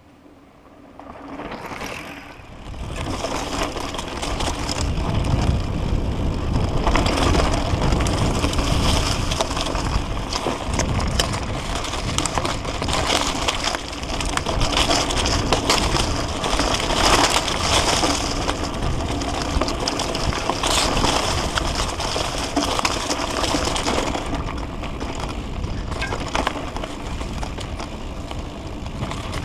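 Mountain bike riding fast down a dirt singletrack, heard close up: tyres crunching over dirt and loose stones and the bike rattling over the bumps, over a low rumble. It starts faint and grows loud over the first few seconds.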